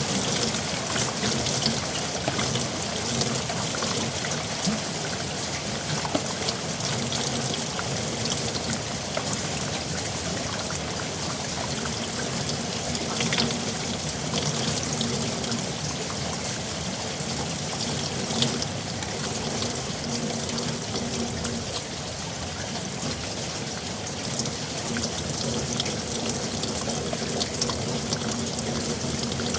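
Heavy rain falling steadily in a yard, with spattering drops and water pouring and trickling, as from runoff or a downspout.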